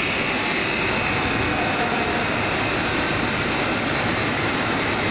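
FRTMACHINE FRT-600 stone bridge saw running, its diamond blade grinding through a stone slab as a steady loud hiss with a faint high whine early on.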